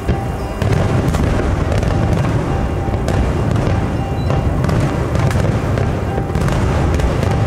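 Aerial fireworks going off in quick succession: a continuous low rumble of booms with sharp cracks on top, getting louder about half a second in. Music plays along with it.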